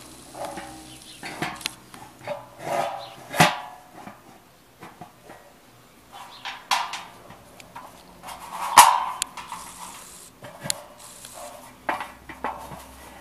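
A dog barking a few times in short separate barks, loudest about three and a half and nine seconds in.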